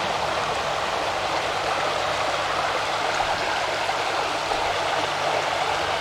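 Small mountain creek's water rushing steadily over rocks.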